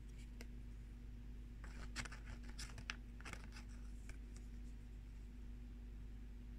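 Soft paper rustling and small ticks as the pages of a small oracle-card guidebook are leafed through, bunched a couple of seconds in, over a steady low electrical hum.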